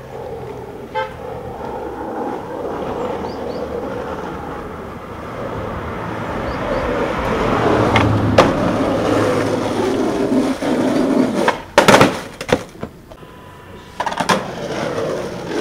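Skateboard wheels rolling on asphalt, growing louder over several seconds, with sharp clacks of the board hitting the road about eight and twelve seconds in, the loudest near twelve seconds.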